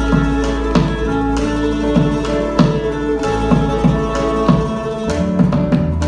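A parranda folk ensemble playing live: several acoustic guitars strum a steady rhythm, with held melody notes over a continuous deep bass.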